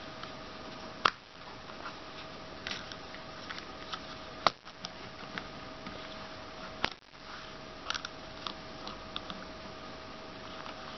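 Small plastic clicks and rattles from handling a suction-cup camera mount, its ball joint, arm and thumbscrew being turned and adjusted by hand. Three sharper clicks come about one, four and a half and seven seconds in, over a steady faint hum.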